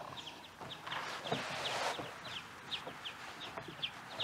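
Background chirping from a small animal: short, high, slightly falling chirps repeating about three times a second. There is a brief rustling hiss between about one and two seconds in.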